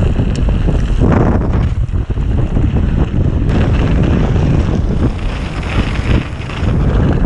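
Wind rushing over an action camera's microphone as a mountain bike runs fast down a snowy trail, with the rumble of the tyres on the ground underneath.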